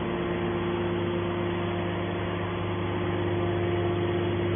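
Mini hydraulic can baler's electric motor and hydraulic pump running, a steady even hum.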